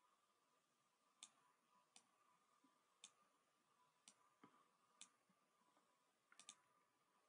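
Faint computer mouse clicks: single clicks about a second apart, with a quick double click near the end, over near-silent room tone and a faint steady hum.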